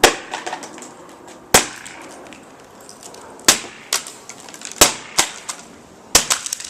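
A stick striking and busting up hard objects: about eight sharp whacks at uneven intervals, some in quick pairs.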